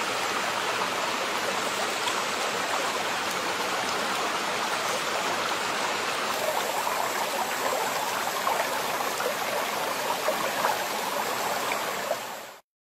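Small rocky stream flowing: a steady rush of water, with a few faint crackles in the second half. It cuts off suddenly near the end.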